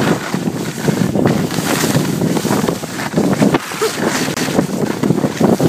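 Wind buffeting a phone microphone while skiing downhill, mixed with the rushing scrape of skis on hard-packed snow.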